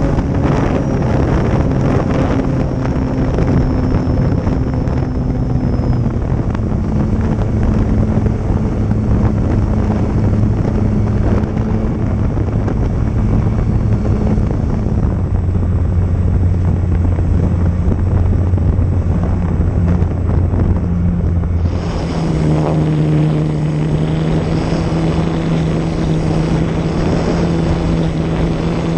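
RC airplane motor and propeller running steadily under heavy wind noise. The pitch steps down twice as the throttle eases, then jumps back up about three quarters of the way through.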